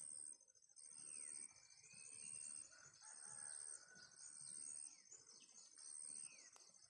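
Faint crowing from a kampung (village) rooster, over a high buzz that pulses about once a second.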